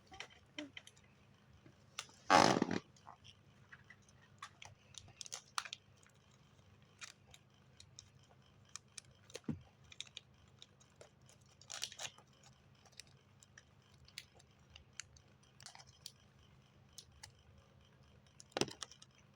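Small handling noises: scattered clicks and taps, with a louder half-second rustle about two seconds in and another short one near the end.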